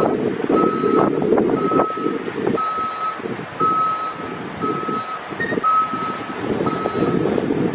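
Backup alarm on a 2007 Ford F-750 water truck beeping about once a second, each beep about half a second long, as the truck reverses; the beeps stop near the end. Underneath runs a low rumble.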